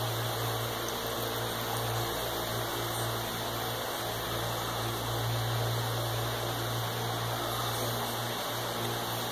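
Steady background noise: an even hiss with a low hum underneath, unchanging, with no distinct sounds on top.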